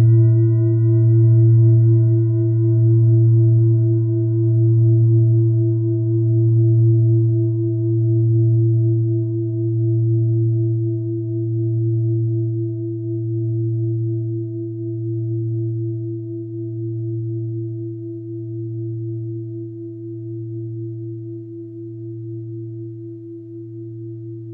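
Mindfulness bell struck once, giving a deep ringing tone with a slow, even waver that fades gradually. The higher overtones die away first.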